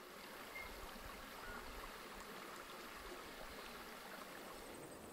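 Faint, steady outdoor background noise: an even hiss with a low rumble underneath and a couple of faint short chirps in the first two seconds.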